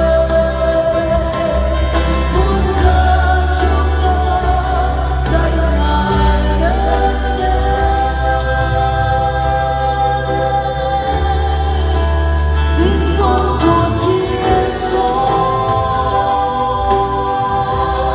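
Three singers, two men and a woman, sing a Vietnamese worship song in harmony through microphones, holding long notes. An accompaniment with a steady bass plays beneath them.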